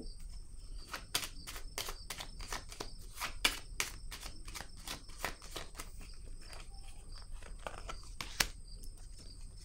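Tarot cards being handled and laid down on a table: a run of light, irregular clicks and taps, about two or three a second, the sharpest about three and a half and eight and a half seconds in. Crickets chirp faintly throughout.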